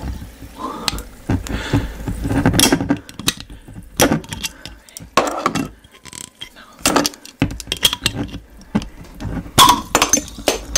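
Close-miked eating sounds: wet chewing and repeated mouth clicks, with light clinks of glass.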